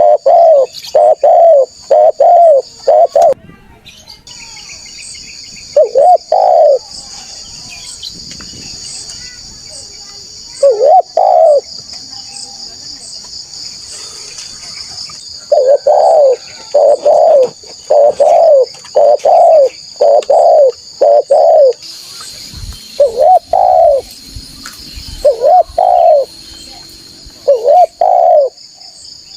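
Spotted dove (tekukur) cooing loudly, in runs of short, rounded coo notes separated by pauses of a few seconds. A steady high-pitched drone carries on underneath.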